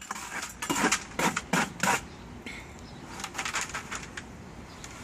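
Sand pouring into a hollow plastic birdbath base as the last of it is tipped in, with a few sharp gritty clicks and rattles in the first couple of seconds and then fainter scattered ticks.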